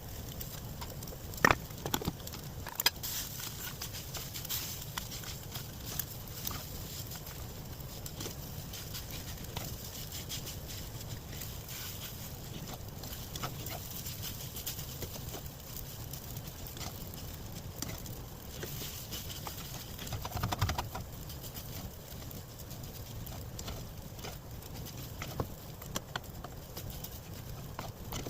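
Fried rice sizzling in a pan, a steady hiss with scattered crackles, and a few sharp knocks: one about a second and a half in and a short clatter about twenty seconds in.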